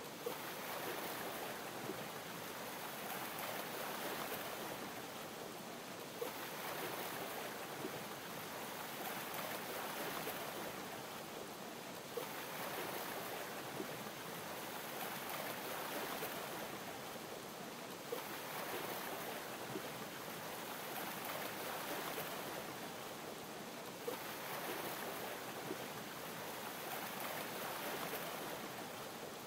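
Sea water lapping against a boat's hull: a steady wash that swells about every six seconds, each swell starting with a light click.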